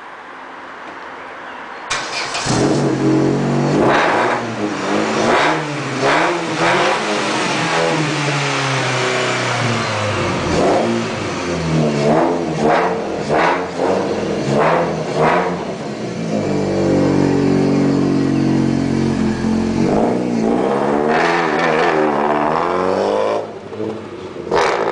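Opel Tigra's exhaust as the engine is revved in repeated quick blips, the pitch rising and falling each time, then held at higher revs for a few seconds before more blips and a drop back near the end.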